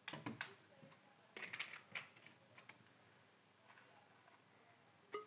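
Scattered light clicks and knocks of a plastic bottle and a small test tube being handled and set down on a glass bench top, in small groups: a few at the start, more about one and a half to two seconds in, and one near the end.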